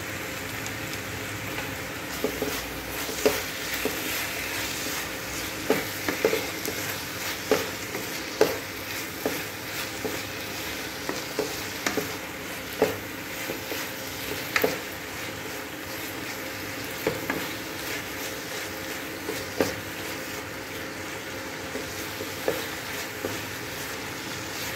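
Wooden spatula stirring thick lauki halwa (grated bottle gourd) in a kadhai, knocking and scraping against the pan at irregular intervals over a steady sizzle.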